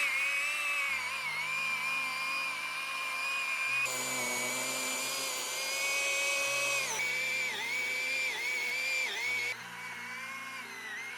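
Small power saw whining as it cuts into a tree root, its pitch dipping repeatedly as the blade bogs under load. Light background music underneath.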